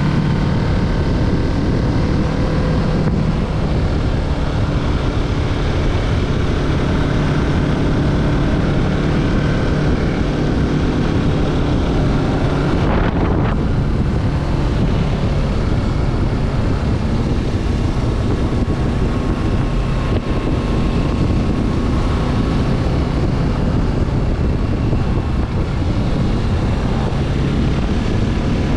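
Kawasaki Z650's parallel-twin engine running at a steady pace with heavy wind noise on the microphone, and a brief change in the sound about halfway through.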